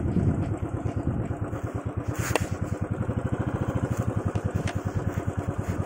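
Motorcycle engine running at low speed with a steady, rapid putter while ridden over a rough dirt track, with one sharp click about two seconds in.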